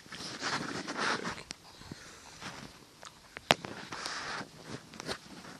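Close handling noise: irregular rustling with scattered small clicks, and one sharp click about three and a half seconds in.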